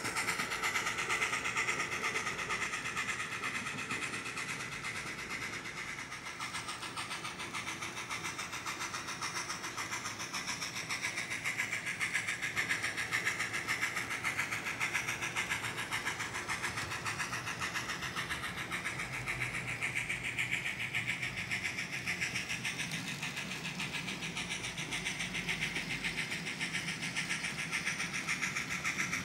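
Model trains running on the layout track: a steady mechanical whir of locomotive motors with rapid clicking of wheels over rail joints. It eases off a few seconds in and grows louder again as the trains come closer.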